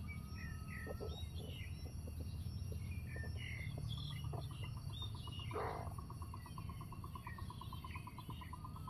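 Small birds chirping on and off with short, high calls, joined about halfway through by a rapid, even trill that keeps going. A steady low rumble runs underneath.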